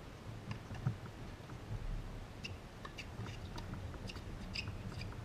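Tennis rally on a hard court heard from a distance: scattered sharp pops of racket strikes and short high squeaks over a low steady rumble.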